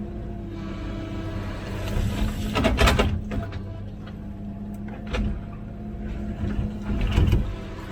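Komatsu PC16 mini excavator's diesel engine running with a steady hum, with sharp knocks of the work equipment about three, five and seven seconds in.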